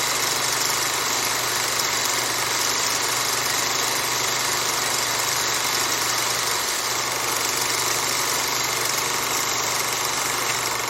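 Old overhead projector running: a steady rush of its cooling fan over a low, constant electrical hum.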